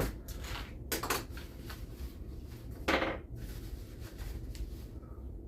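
Handling noise as a small welcome pouch is opened and its contents taken out: a few short rustles and knocks, the loudest about three seconds in, over a steady low hum.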